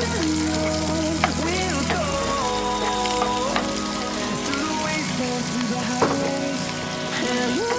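Pork sizzling as it dry-fries in a pan, a steady hiss broken by a few sharp clicks, over background music.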